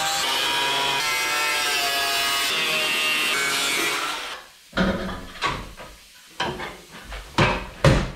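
A power tool running steadily on the truck's bodywork for about four seconds, with a shifting whine, then stopping. It is followed by about six sharp knocks or clanks of metal work, spaced irregularly.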